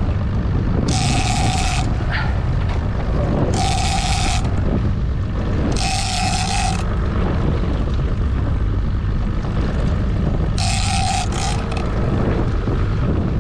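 Shimano Tiagra 50 Wide lever-drag game reel buzzing in four short bursts of under a second, a few seconds apart, as a hooked fish, likely a tuna, pulls line off against the drag. Under it runs the steady low hum of the boat's outboard idling in gear, with wind on the microphone.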